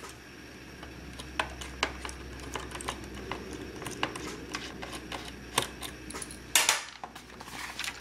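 Small screwdriver turning out a screw from the plastic underside of an Asus Chromebox: scattered light clicks and scrapes of the metal tip against the screw and case, with a brief louder scrape about six and a half seconds in.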